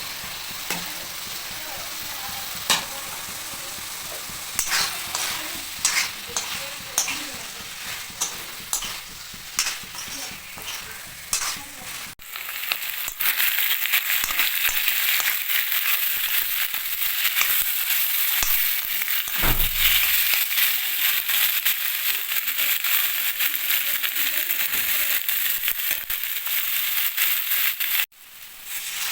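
Food frying in hot oil in a pan, sizzling steadily, with a utensil clicking and scraping against the pan as it is stirred. About twelve seconds in the sound cuts to a louder, denser sizzle with no stirring, which cuts off again near the end.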